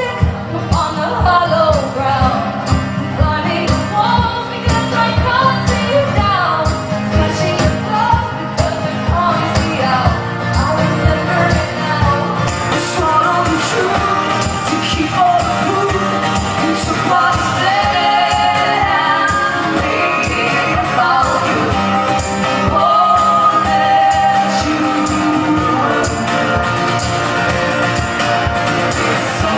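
Live song performance: sung vocals over a steady strummed, rhythmic accompaniment.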